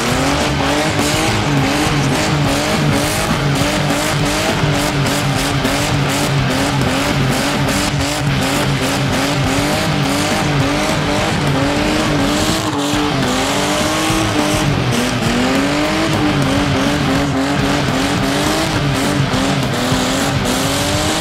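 A small old Toyota sedan doing a burnout: its engine is held at high revs that waver up and down about twice a second, over the hiss and squeal of the spinning rear tyres.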